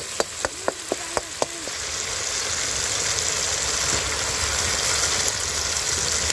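Masala frying in oil in an iron wok: a metal spoon clacks against the pan about eight times in quick succession at the start, then a steady sizzle takes over, louder from about two seconds in.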